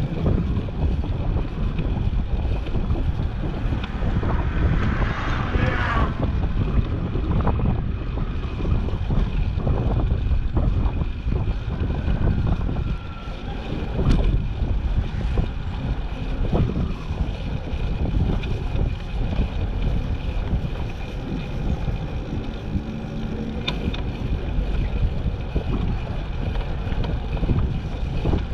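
Wind buffeting the microphone while riding a bicycle, a steady low rumble, with a brief rise of brighter noise about five seconds in.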